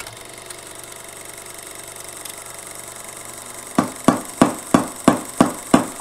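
Background music: a steady droning hum, then seven sharp, evenly spaced beats, about three a second, leading into the tune.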